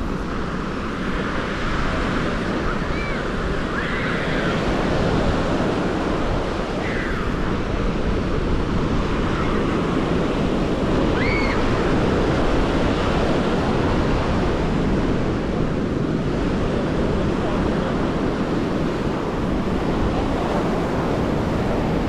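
Ocean surf breaking on a sandy beach: a steady, continuous wash of waves, with wind buffeting the microphone.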